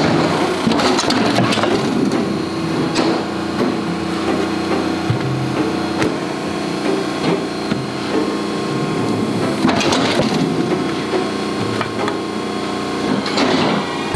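Factory machinery hum with bouts of rustling and crackling as die-cut pieces of black sheet material are pulled free of the cut sheet by hand, the loudest spells at the start, about ten seconds in and near the end.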